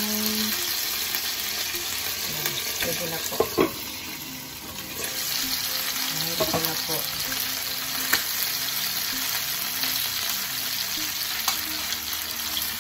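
Chicken pieces and livers sizzling steadily in hot oil in a frying pan, with a few short sharp clicks of the lid and utensils.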